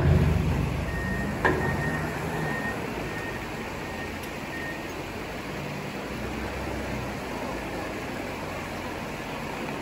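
Komatsu WA380 wheel loader's diesel engine running steadily while working a rockfall. It starts loud with rock clatter that fades over the first two seconds, has a single knock of rock about a second and a half in, and gives a faint repeating beep for the first few seconds, typical of the loader's reversing alarm as it backs off the pile.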